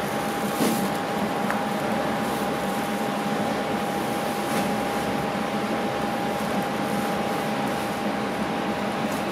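A machine running steadily: an even rush of air-like noise with a low hum and a constant high whine.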